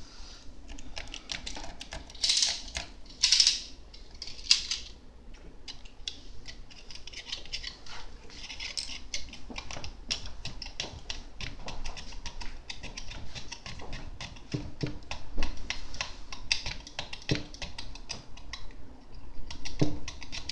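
The metal tip of a hand tool scraping and picking at a 3D printer's glass print bed: a rapid run of small clicks and scratches, with a few louder scraping strokes about two to four seconds in and again near the end.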